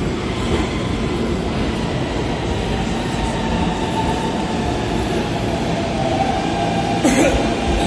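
New York City subway M train pulling into an underground station alongside the platform: a steady rumble and rattle of the cars, with a faint whine coming in during the second half. A brief sharp screech about seven seconds in.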